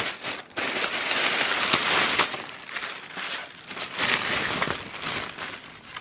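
Thin plastic shopping bag rustling and crinkling as it is handled, with light knocks of small cardboard cosmetic boxes being tipped out and shuffled against each other.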